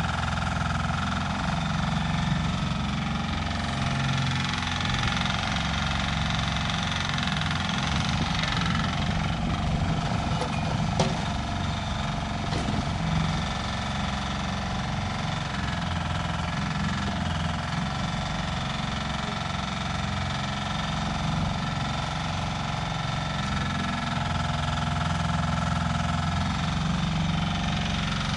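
Floating mini excavator's engine running steadily while the machine digs, with one sharp knock about eleven seconds in.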